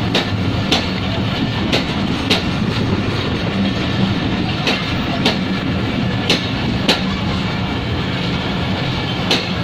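Express passenger coaches rolling past close by: a steady rumble of wheels on rail, with sharp clickety-clack clicks in pairs, about half a second apart, as each coach's wheels cross rail joints.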